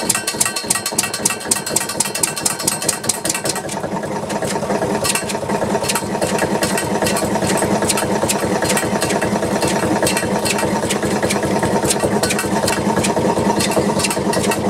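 Bamford SD3 stationary engine running just after starting, with a rapid, even knock. It runs unevenly for the first few seconds, then settles into a steady beat.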